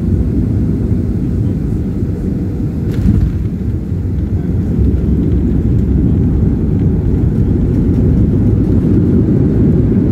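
Cabin rumble of a Boeing 737-300/500 on its landing roll just after touchdown, ground spoilers raised: a loud, steady low rumble with a brief knock about three seconds in. The rumble grows louder in the second half.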